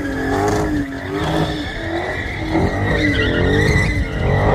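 Car engine revving up and down again and again, about once a second, while its tyres squeal steadily in a slide.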